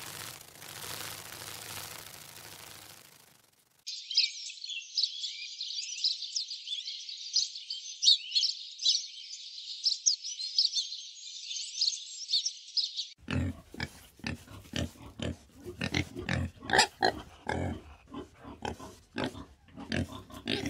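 A steady hiss for the first few seconds. Then small birds chirp and twitter rapidly for about nine seconds. For the last seven seconds a warthog grunts over and over in quick, irregular bursts.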